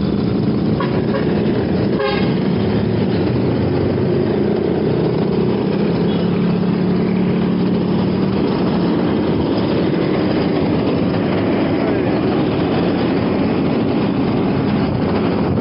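Steady rush of wind buffeting the microphone while riding a fixed-gear bicycle, mixed with passing traffic. A short horn toot sounds about two seconds in.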